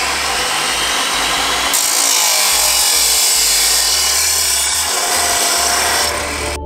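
Abrasive chop saw (metal cut-off saw) running and grinding through a steel rectangular hollow-section tube; the cut turns harsher and brighter about two seconds in as the blade bites into the metal, easing slightly near the end.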